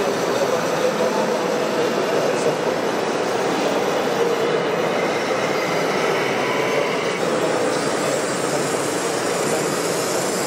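Steady mechanical running of radio-controlled model vehicles' electric motors and gearboxes: a continuous whirring clatter with a faint high whine that shifts in pitch about two-thirds of the way through.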